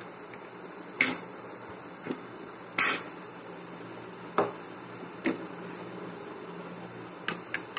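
A steel spoon clinking and scraping against a plastic food container and a plate as rice is served out and stirred: about seven short, sharp clinks, one a little longer scrape near three seconds in, over a steady background hum.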